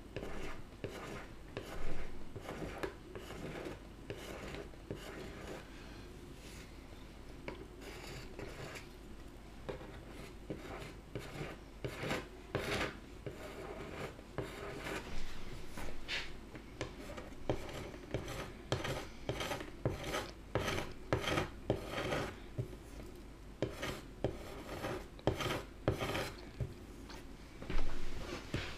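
Metal scraper drawn over a snowboard's base in many short, irregular strokes, shaving off excess hardened P-tex from a filled gouge a thin layer at a time. The strokes come quicker and closer together in the second half.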